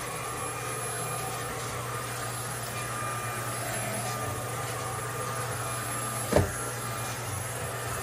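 YONNDER E1 cordless stick vacuum running steadily on carpet with its LED floor brush, a constant motor hum and whine. A single short knock about six seconds in.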